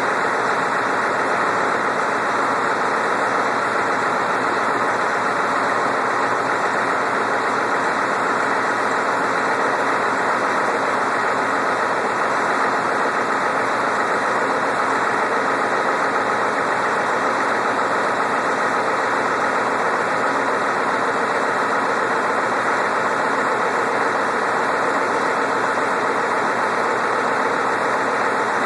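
Freshly rebuilt Ford 7.3 IDI turbo diesel V8 idling steadily.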